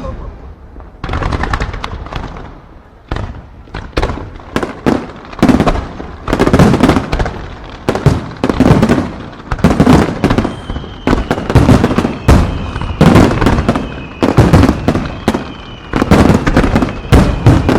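Aerial firework shells bursting in a dense, rapid barrage: booms and cracks come several a second with echoing tails, and they keep going without a break.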